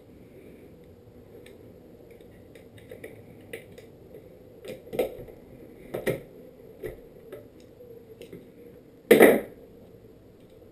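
Scattered light clicks and taps of bolts, nuts and a tool against a skateboard deck and truck while the truck is being mounted, with a louder knock about nine seconds in.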